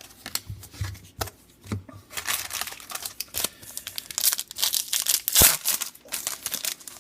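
A trading card pack's wrapper being torn open and crinkled by hand. There are a few light clicks at first, then a dense run of crackling from about two seconds in, with one sharp snap a little past the middle.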